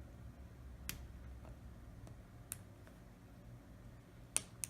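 A few faint, sharp clicks and taps of a small repair tool against a smartphone's internal parts as the front-facing camera is wiggled free, with two clicks close together near the end.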